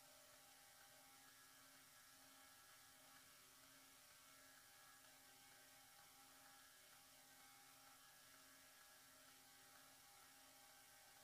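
Near silence: a faint steady electrical hum over hiss.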